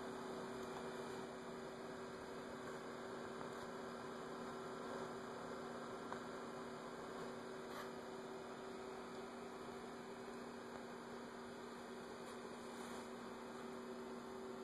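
Faint, steady electrical hum of two low tones from a powered-up homemade electronic dummy load, running with no amplifier connected.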